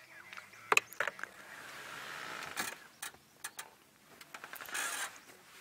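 Close handling clicks and knocks of camera gear, with a short whirr from a lens's zoom motor as the shot zooms out.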